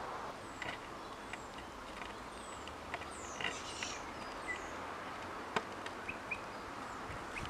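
Steady faint background hiss with scattered short high chirps, a cluster of them near the middle, and a few sharp clicks.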